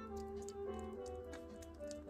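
Background music with a gentle melody over irregular small wet clicks, several a second, from kittens licking and chewing soft wet food.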